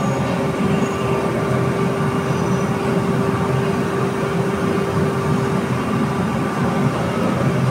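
Steady rumbling noise of gas burners heating large pans of boiling sugar syrup, with a faint constant hum.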